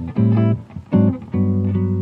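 Acoustic guitar played fingerstyle, slow plucked chords and single notes ringing out one after another.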